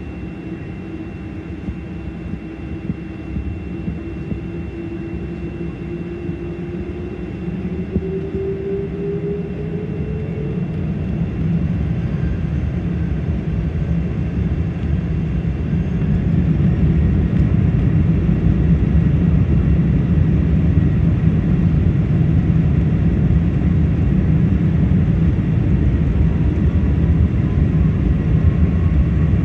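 Boeing 747's jet engines heard from inside the cabin over the wing: a steady low rumble with a whine rising in pitch. It grows louder about halfway through as the engines spool up.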